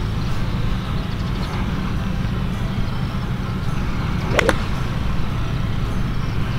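Steady low outdoor rumble, with one sharp crack of a golf club striking a ball, followed by a short ring, a little over four seconds in.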